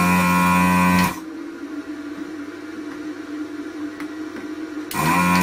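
Built-in vacuum pump of an Anesty ZD-915 desoldering station running in two short bursts, one at the start and one near the end, each spinning up with a quick rising whine as the desoldering gun is triggered to suck solder from board pins. A quieter steady hum lies between the bursts.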